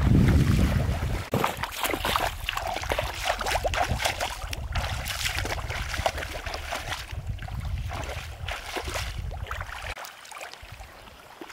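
Feet splashing and sloshing through shallow muddy water as a person wades, with wind rumbling on the microphone, heaviest at the start. About ten seconds in the splashing and wind drop away, leaving faint water sounds from hands moving in the water.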